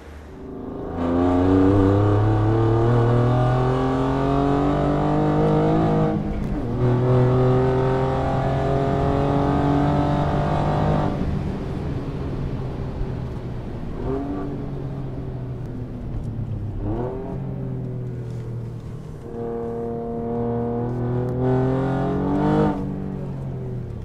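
Alfa Romeo Giulia Quadrifoglio's 2.9-litre twin-turbo V6 through a decat custom exhaust, pulling hard with its pitch climbing, dropping at a gear change about six seconds in and climbing again. It then runs quieter with two short throttle blips, and pulls once more near the end before lifting off suddenly.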